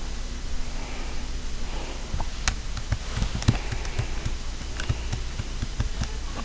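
Steady hiss and low hum of background noise, with scattered short clicks and taps, the strongest about two and a half and three and a half seconds in.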